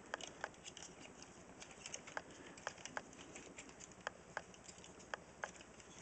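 Plastic parts and joints of a Transformers Wolverine action figure clicking as it is twisted and folded by hand: faint, irregular clicks, about two a second.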